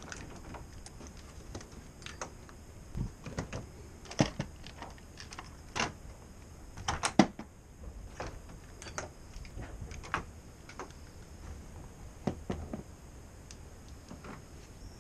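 Irregular small clicks and knocks of airsoft gear being handled and loaded, a few sharper knocks among them, the loudest about seven seconds in.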